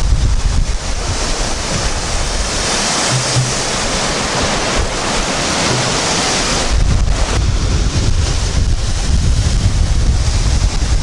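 Rough Baltic Sea surf breaking and washing over wooden groynes below a sea wall, with strong wind buffeting the microphone. The wind rumble eases from about a second in until about seven seconds in, leaving mostly the hiss of the surf.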